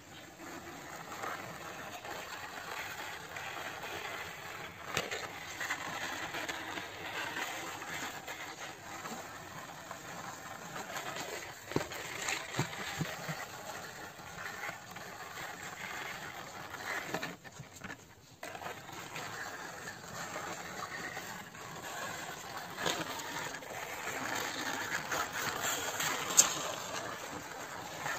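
Plastic toy bus's wheels rolling and scraping along rough cement as it is pushed by hand: a steady gritty rattle with a few sharp clicks.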